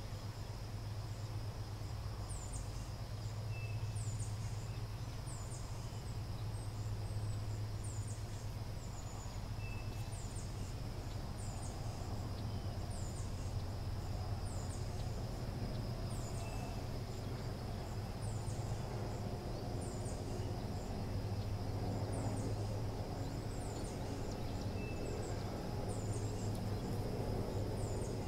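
Outdoor ambience: a steady low rumble and a steady high hum under a thin, high chirp that repeats about every second and a half.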